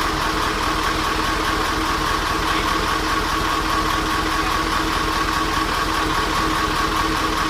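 Mitsubishi Fuso twin-turbo V8 diesel engine idling steadily, with a steady whine over its running.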